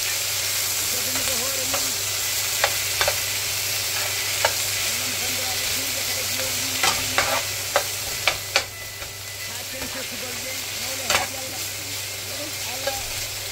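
Sliced onions and red bell pepper sizzling in oil in a skillet while being stirred with a slotted metal spoon, which gives sharp clicks against the pan every second or so through the middle.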